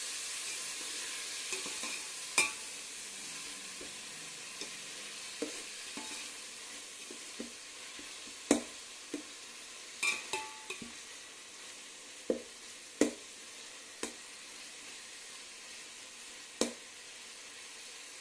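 Chopped tomatoes and onions sizzling in oil in a metal pot as they fry down until soft, the sizzle slowly growing quieter. A metal ladle stirs them, knocking sharply against the pot now and then.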